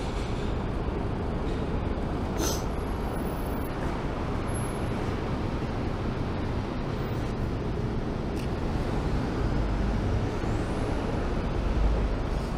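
Steady urban traffic rumble with a low engine drone that grows louder near the end, and one sharp click about two and a half seconds in.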